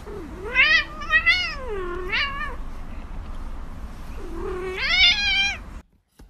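A cat giving two long, drawn-out meows, each wavering up and down in pitch. The second begins about four seconds in and is cut off suddenly near the end.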